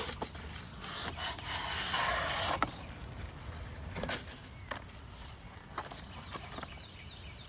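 Cardboard rubbing and scraping as a long cardboard product box is slid out of a shipping box, louder for the first couple of seconds and ending in a sharp tap. A few light knocks follow as the box is handled.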